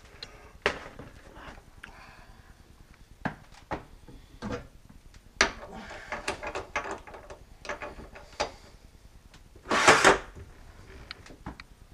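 Scattered metal clicks, clunks and short scrapes of a tool holder being set and locked in a lathe's quick-change tool post, with one louder, longer scrape near the end.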